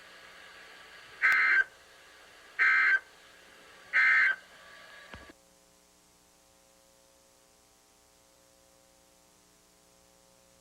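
Emergency Alert System end-of-message data bursts: three short, buzzy digital squawks about a second and a half apart, closing the Required Weekly Test. A faint steady hum remains after them.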